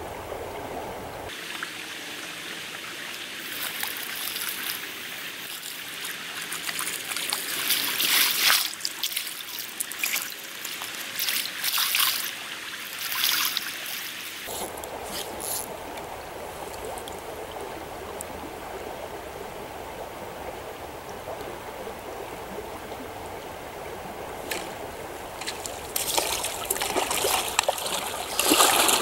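Trout stream water running and trickling, with bouts of splashing several seconds in and again near the end.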